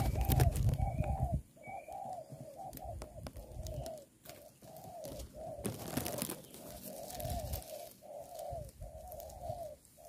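Spotted doves cooing in a steady series of short, repeated notes. A loud low rumble comes over them in the first second and a half.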